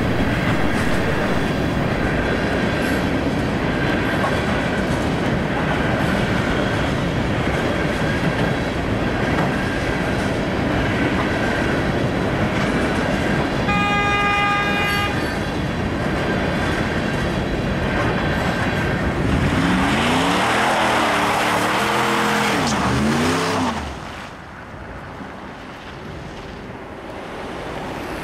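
Freight train cars rolling through a grade crossing: a steady rumble of wheels on rail, with the crossing bell ringing faintly throughout. About halfway through a horn sounds for about a second and a half. Near the end the train noise cuts off suddenly and it goes much quieter.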